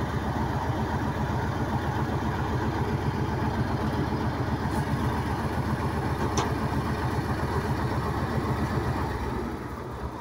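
Truck engine running steadily while it powers the truck-mounted crane lifting a crate, easing off a little before the end. There is a single sharp click about six seconds in.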